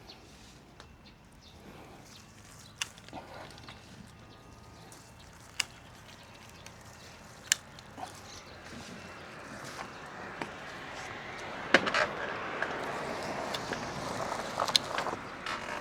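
Quiet background with a few isolated sharp clicks, and a rustling hiss that grows louder from about halfway through.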